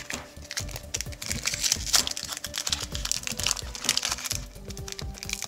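Basketball trading cards and their foil pack being handled: irregular quick clicks and crinkling rustles, over background music.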